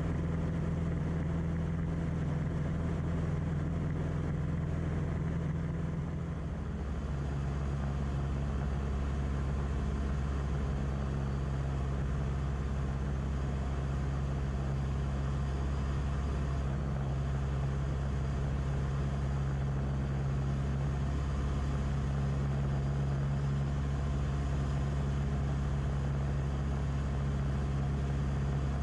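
Cockpit noise of a Beechcraft Musketeer's four-cylinder piston engine and propeller in flight, a steady drone whose note changes about six seconds in. Recorded by a camera whose filter rattles, so the sound is harsh.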